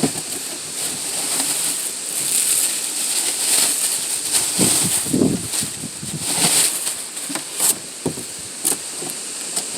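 Rustling and crinkling of packaging being handled, with two sharp clicks near the end.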